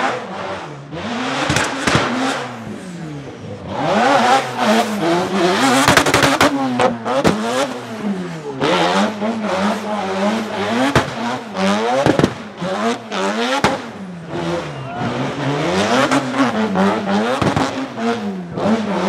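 Twin-turbo four-rotor 26B rotary engine in a Nissan Silvia S15 revving up and down over and over through a smoky drift and donuts, with tyres squealing and several sharp cracks from the car.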